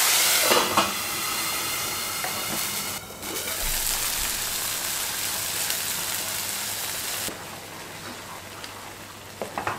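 Wet ground coconut masala paste sizzling as it hits hot oil with its tempering of mustard seeds, cumin and curry leaves in a non-stick kadai. The sizzle is loudest in the first second, then settles to a steady hiss that drops lower about seven seconds in.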